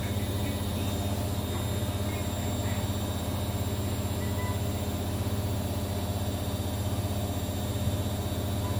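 Steady low rumble with a faint hum over it, unchanging throughout.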